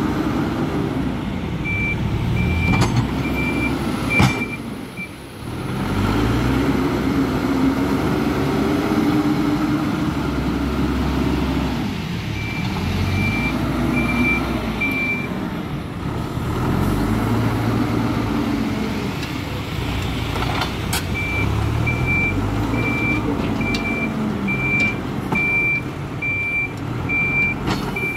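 Hidromek 102S backhoe loader's diesel engine running and revving up and down repeatedly as the machine works its front bucket in soil, with its reversing alarm beeping in three spells as it backs up. A few sharp metallic knocks sound along the way.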